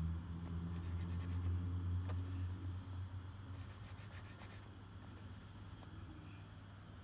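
Fingertips scratching and rubbing across the textured printed cardboard of a Pokémon trading card game box, in several short scratchy runs. A low rumble underneath fades out after about three seconds.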